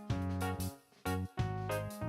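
Background music: a bouncy piano or keyboard tune with a bass line, notes changing every few tenths of a second, with a brief gap about a second in.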